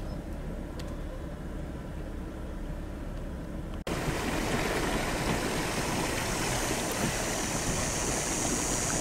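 An engine idling low and steady for about four seconds, then an abrupt cut to a louder, steady rushing noise with a high hiss that grows stronger near the end.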